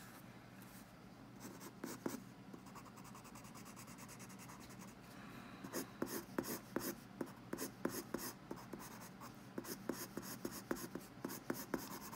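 Pencil scratching on paper in short, repeated strokes as a sketch is darkened in. There are a few strokes early, then a quicker run of strokes from about halfway through.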